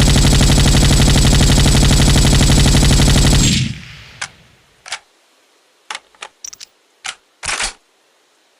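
An M60 belt-fed machine gun firing one long continuous burst that stops about three and a half seconds in, the echo dying away. Then come several short, sharp clinks, some single and some in quick clusters.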